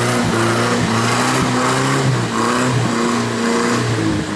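Off-road 4x4 engine revving hard under load, its pitch repeatedly rising and dropping as the vehicle pushes through deep mud.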